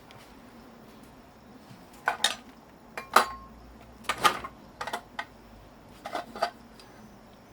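Metal parts being handled, clinking and clanking together in four short clusters, the loudest a sharp clank about three seconds in.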